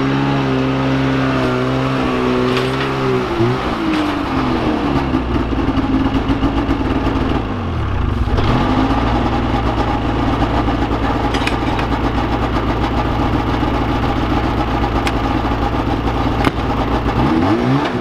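Polaris snowmobile engine running close by. Its pitch drops a few seconds in, dips and comes back up around the middle with the throttle, then holds steady.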